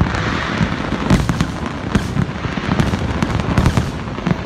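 Large fireworks display: many shells bursting in quick, uneven succession, a continuous barrage of bangs and crackling.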